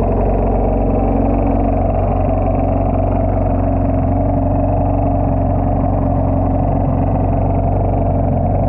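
Jet ski engine idling steadily, hooked up to a garden hose for a freshwater flush.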